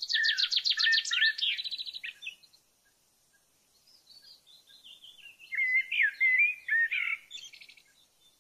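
A songbird singing two phrases of quick, varied notes with rapid trills; the first fades out about two seconds in, and the second starts soon after and ends near the end.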